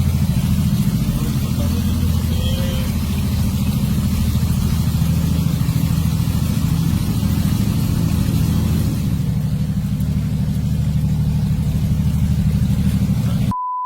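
A vehicle engine running steadily with a low drone, under a constant hiss. Near the end the sound cuts out briefly to a short, pure beep tone.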